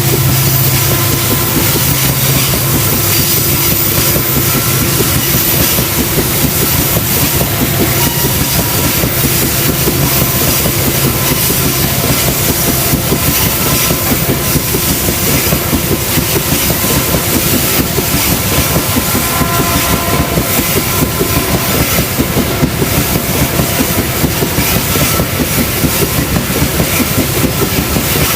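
Diesel-electric locomotive running with its train, the wheels clattering rhythmically over rail joints. A low engine tone is strong for the first few seconds, then fades.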